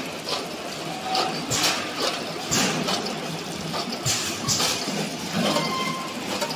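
Automatic breadstick loading and flow-wrapping machine running, its chain conveyor and pusher fingers giving a steady mechanical clatter. Short hissing bursts recur every second or so.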